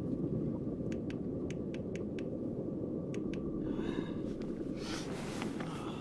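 Steady low rumble with a few light clicks, then rustling of fabric and gear twice near the end as someone moves inside a tent.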